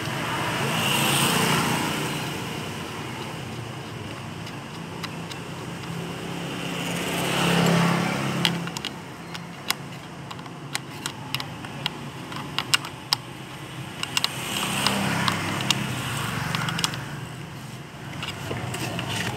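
Motor vehicles passing by three times, each rising and fading as a rumbling swell, with a run of sharp metallic clicks and taps in between from tools and bolts while the sewing machine's motor is mounted under the table.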